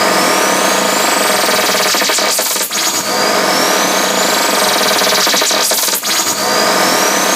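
Improvised tape music played on a Revox A77 reel-to-reel tape recorder: a loud, dense, harsh noise texture that repeats about every three seconds. Each cycle carries a high whistle that glides upward.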